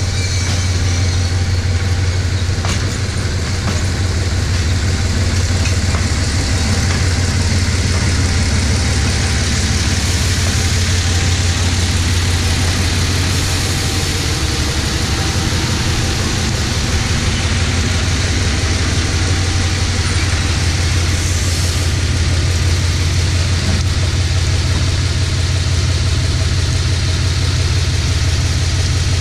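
GE diesel-electric shunting locomotive GEK 4011 running close by, its diesel engine giving a steady, loud low hum.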